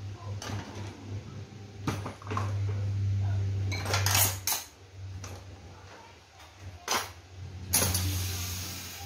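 Metal hand tools clinking and clattering as they are picked up and moved about on a workbench, with a handful of sharp knocks, loudest about four seconds in, over a low steady hum.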